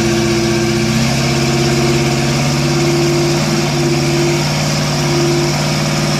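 Engine of a lifted off-road 4x4 truck running loud and steady under load as it crawls up a rock ledge, its pitch shifting slightly about a second in.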